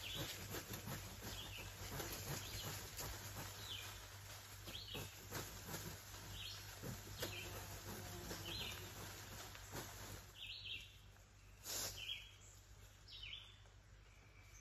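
A songbird repeating a short high chirp about every second and a half, over rustling and scraping from work at the ground, with a few sharp knocks, the loudest about twelve seconds in.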